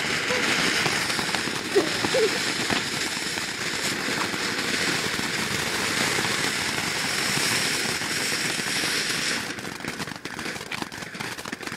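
A ground firework burning with a steady hissing crackle that cuts off about nine and a half seconds in, leaving a few faint pops.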